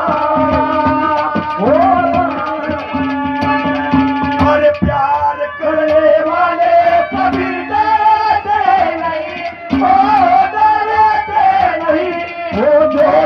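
Instrumental break of Haryanvi ragni folk music: a held, bending melody line over fast hand-drum beats.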